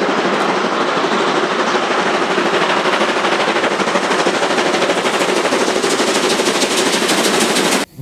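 Steam locomotive working hard under load, its exhaust chuffing in a fast, even beat over steady steam noise. It cuts off abruptly near the end.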